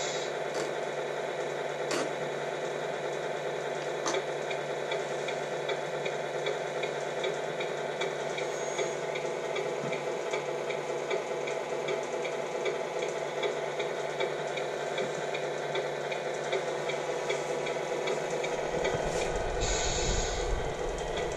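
A simulated diesel truck engine idling steadily through the small speaker of the model truck's sound unit, a buzzy hiss-laden running sound with faint regular ticking. A low rumble joins it near the end.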